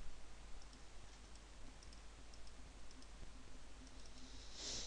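Faint, scattered computer mouse clicks over a low steady hum, with a short soft hiss near the end.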